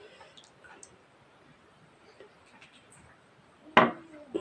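Tableware clinks sharply near the end, the first knock ringing briefly, and a second clink follows: a utensil striking a dish as a meal of rice and mutton curry is begun.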